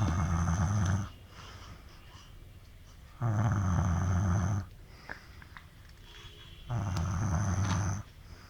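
A sleeping man snoring in a regular rhythm: one snore already under way ends about a second in, then two more follow about three and a half seconds apart, each lasting a little over a second.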